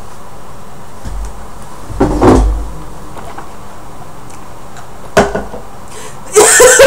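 Movement noises: a muffled thump and rumble about two seconds in as a person sits down at the table, then a single sharp knock about five seconds in as a glass is set down on the wooden table top. Voices start up just before the end.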